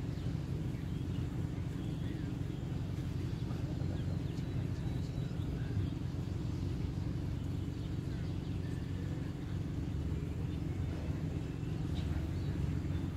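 Steady low outdoor rumble, even throughout, with a few faint high chirps now and then.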